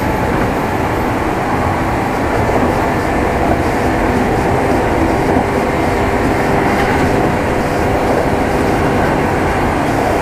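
Kintetsu 2610-series electric train running steadily, heard from inside the motor car: wheels on rail and traction motor and gear hum at an even level.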